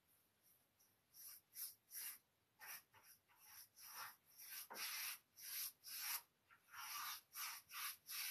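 Faint swishes of a paintbrush's bristles stroking clear sealer across a painted wooden chest lid, quick back-and-forth strokes about two to three a second, starting about a second in.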